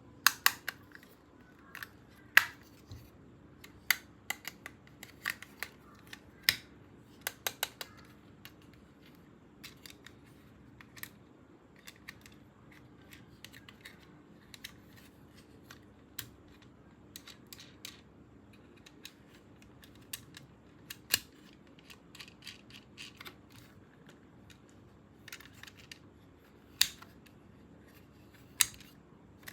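Irregular sharp clicks and snaps from hands handling a plastic toy and its packaging. They come thick and fast for the first several seconds, then more sparsely, with two louder snaps near the end.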